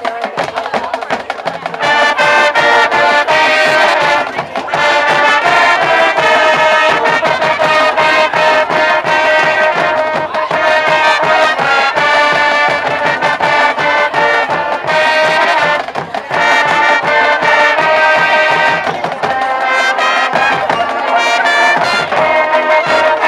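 High school marching band playing a brass tune: trumpets and sousaphone over a drum beat, in phrases with short breaks a few times.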